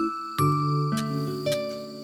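Gentle instrumental background music of plucked notes, with a lower bass part coming in about half a second in.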